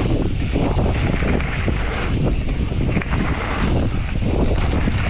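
Wind buffeting the microphone of a camera on a moving mountain bike, a steady heavy rumble, with the rush of tyres and trail beneath it.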